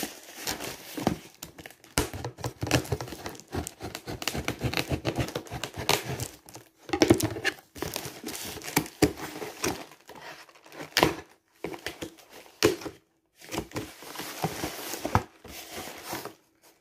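Packing tape being torn and peeled off a cardboard box, with crinkling and scraping of the cardboard as the flaps are worked open, in irregular stops and starts.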